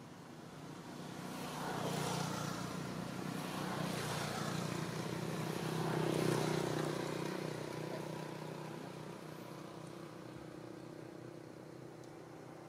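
A motor vehicle engine passing by: the sound swells over the first couple of seconds, peaks about six seconds in, then slowly fades away.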